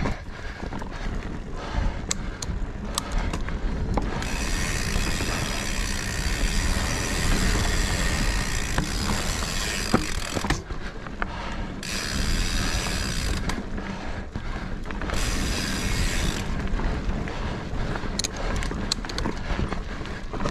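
Mountain bike rolling down a dirt singletrack, its tyres rumbling and the bike rattling and clicking over the ground. The rear hub's freewheel ratchet buzzes in three stretches of coasting, the first and longest about four seconds in, each cutting off sharply.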